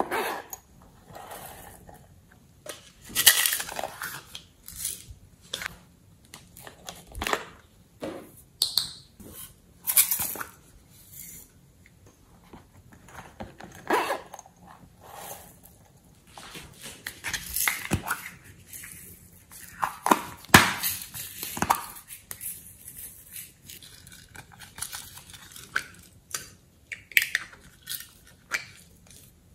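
Small hard-plastic cases handled and pried open by hand: irregular clicks, taps and short scrapes of plastic, with quiet gaps between.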